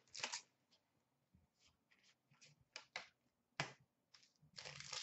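Sparse, faint clicks and taps of trading cards and packs being handled, with a crinkling rustle of a card pack wrapper starting near the end.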